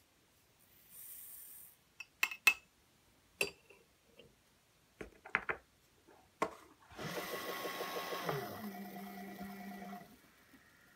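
A brief hiss of gunpowder poured from a metal scale pan into a funnel, then sharp metal clinks as the pan is set on the scale and clicks of the dispenser's buttons. About seven seconds in, the RCBS ChargeMaster 1500 powder dispenser's motor runs for about three seconds as it throws a charge, dropping to a lower, slower note partway through as it changes from fast dispensing to trickling.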